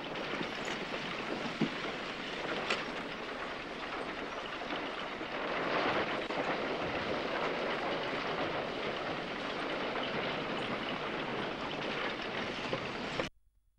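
Horse-drawn wooden wagon rolling along a dirt street, a steady rattling clatter of wheels and gear, a little louder about halfway through, then cutting off abruptly near the end.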